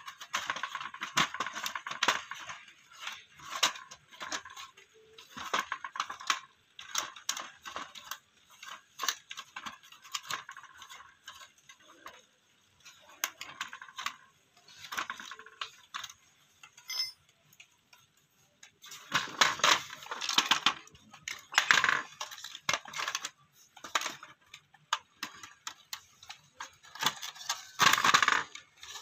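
Cloth rubbing and scrubbing against the plastic inside of an opened cassette radio, a scratchy rustle broken by small clicks and knocks of the casing. The handling gets louder about two-thirds of the way through and again near the end.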